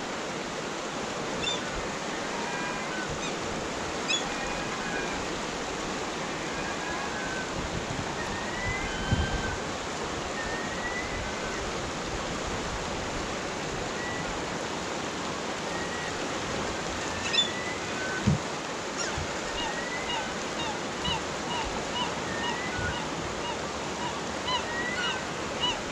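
Steady rushing of a fast river, with scattered short high chirps over it and a few faint knocks.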